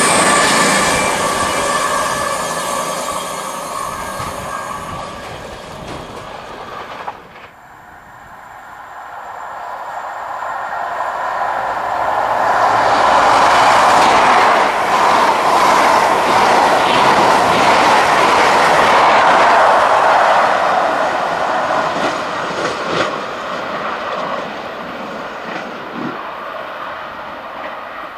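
A CrossCountry Voyager diesel train passing at speed, its sound fading away; then, after a sudden cut about seven seconds in, a CrossCountry HST, its diesel power car and coaches with rattling wheels, builds up and runs loudly past before fading.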